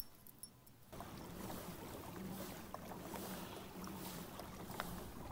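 Pedal-drive kayak under way: a steady wash of water and wind with a faint low hum. It begins about a second in, after a brief near-quiet with a few small clicks.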